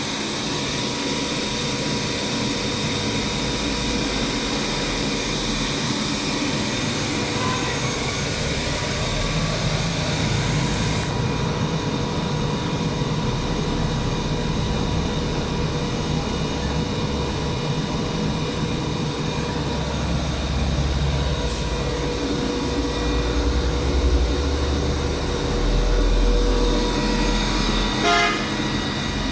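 KTC KMEC 15 rotary screw air compressor running steadily, a loud mechanical drone with a few steady tones over it. The high hiss drops off about eleven seconds in, and a quick run of clicks comes near the end.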